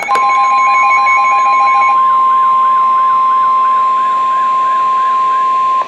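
NOAA Weather Radio warning alarm tone: a loud, steady 1050 Hz tone of nearly six seconds that cuts off sharply just before the end. It is the signal that a severe thunderstorm warning follows. Beneath it, a fainter warbling tone repeats for the first four seconds or so, and short beeps sound in the first two seconds.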